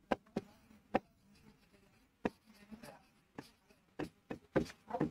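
A pen tapping and scraping on an interactive whiteboard screen while words are handwritten: a string of short, irregular taps.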